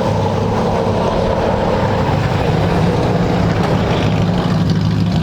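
Big-block V8 muscle-car engine idling with a steady, loud rumble.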